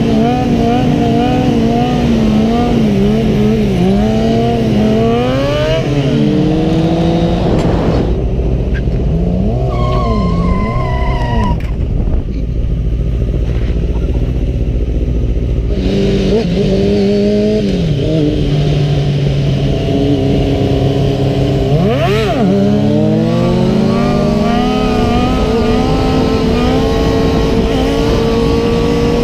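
Sport motorcycle engines running and revving, the pitch rising and falling with throttle and gear changes. A third of the way in the revs drop and the engines run low for several seconds, then climb again in steps and hold a steady, slowly rising pitch near the end.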